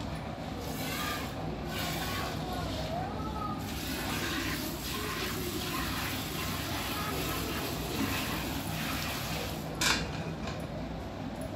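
Milk squirting into a steel bucket as a water buffalo is milked by hand, in rhythmic squirts about two a second. A single sharp click comes near the end.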